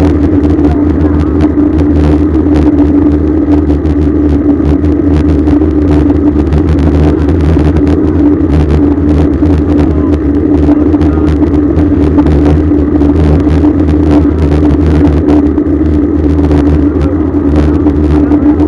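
Steady rush of wind and road noise from riding a bicycle along an expressway, heard on a bike-mounted camera's microphone, with a constant low hum underneath.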